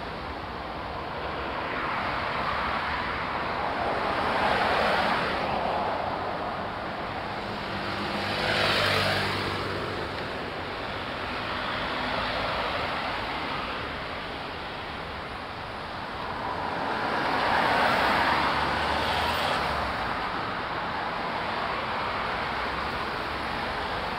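Road traffic passing on a busy road, with vehicles going by one after another, each swelling and fading. About nine seconds in, one passes close with a low engine drone.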